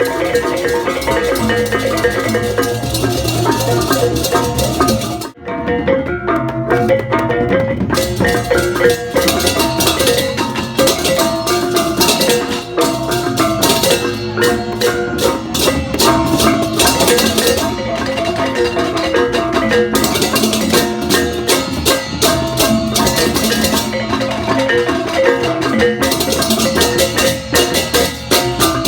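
Balinese gamelan playing: struck bronze metallophones and gongs with drums, dense and fast, with a constant high clashing. The music drops out for a moment about five seconds in.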